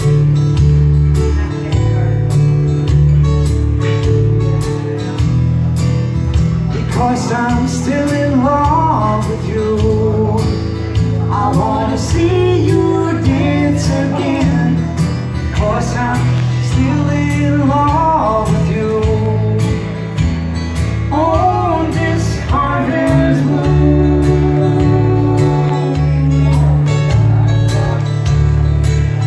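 Live acoustic guitar strumming and electric bass playing a slow song. A singing voice comes in about seven seconds in and drops out about two-thirds of the way through, leaving the guitar and bass alone again.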